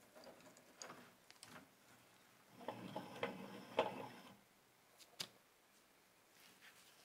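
Faint metallic clicks and ticks as the clamp screw and sliding handle of a small bench vise are turned to clamp it to a table edge, with a denser run of clinks and rattling around the middle and two sharp clicks a little later.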